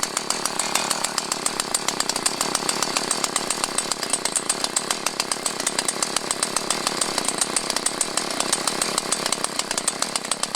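Husqvarna 445 two-stroke chainsaw engine running steadily with a rapid, even pulse and no revving up. It is sluggish and lazy, which the owner describes as half asleep and reluctant to make an effort.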